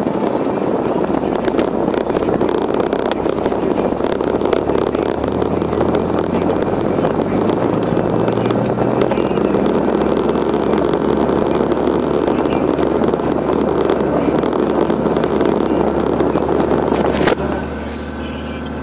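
Steady road and engine noise inside a moving vehicle's cabin, a dense rush with the engine's hum slowly rising in pitch for a few seconds. About a second and a half before the end there is a click, and the noise drops quieter.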